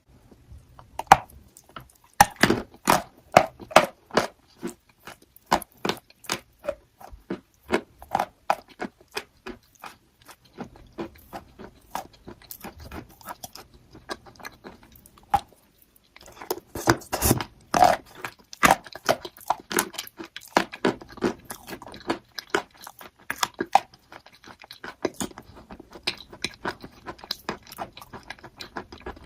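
Crunchy chalk being bitten and chewed: a dense, irregular run of sharp crunches, with a short pause about halfway through and then a louder spell of crunching.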